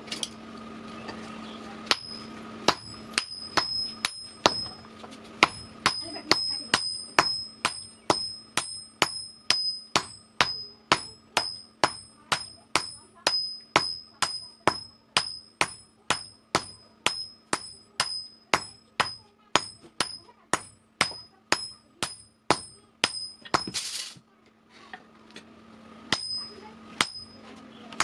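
Hammer blows forging hot axle steel on an anvil, about two strikes a second, each with a high metallic ring. Near the end the blows stop for about two seconds, with a short burst of noise, then start again.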